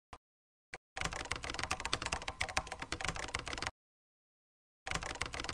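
Typing on a computer keyboard: two single clicks, then a fast run of keystrokes about a second in lasting nearly three seconds, and a shorter run of keystrokes near the end.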